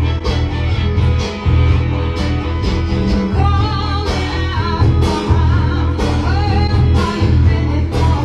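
Background music: a song with guitar and a steady pulsing bass, with a singing voice carrying the melody from about three seconds in.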